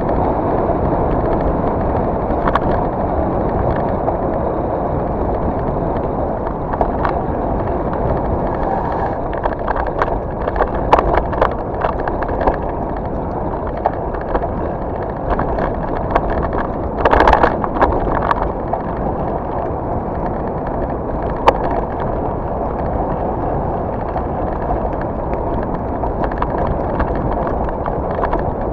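Merida Matts mountain bike ridden down a forest trail: steady tyre and wind rush on the microphone, with scattered knocks and rattles as the bike hits bumps, and a louder clatter about seventeen seconds in.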